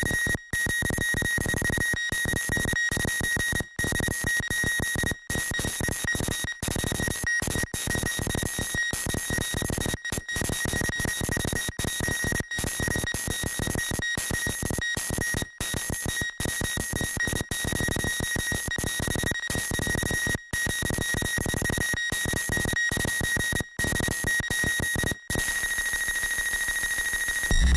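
Glitchy electronic music: a dense crackling noise texture under a steady high, whistle-like tone, cut by many brief silent gaps at an irregular pace, the bass dropping away near the end.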